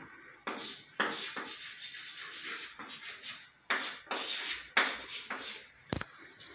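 Chalk writing on a chalkboard: a series of short, scratchy strokes and taps as lines and letters are drawn, followed by a single sharp knock near the end.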